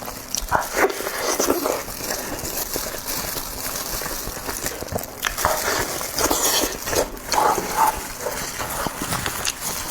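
Close-miked eating sounds: chewing with wet mouth clicks and lip-smacking in irregular clusters.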